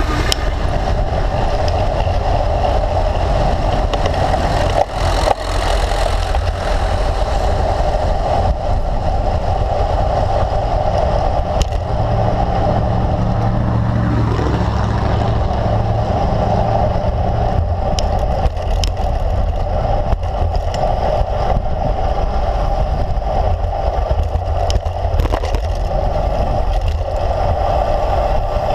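Steady wind and road rumble on a road bike's handlebar-mounted camera while riding along a street, with a few brief knocks from bumps. A low engine hum swells and fades about halfway through as a bus is passed.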